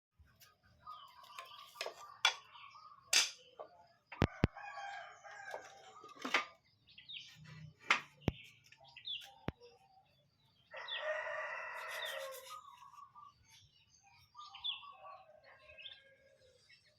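A rooster crowing, one long crow of nearly two seconds about eleven seconds in, among scattered chirps and shorter calls of fowl and other birds. A few sharp clicks sound in the first half.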